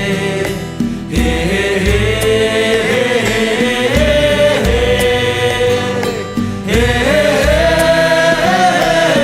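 Background music: a sung vocal melody over a steady low beat.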